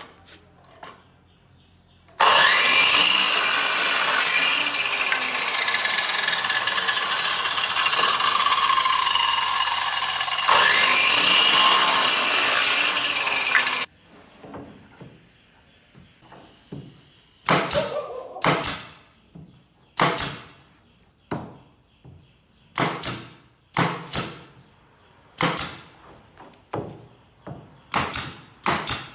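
A woodworking power tool runs loudly for about twelve seconds, its pitch sagging under load as it cuts wood, with a brief dip partway through. A few seconds after it stops, a string of sharp blows on wood begins, about one a second.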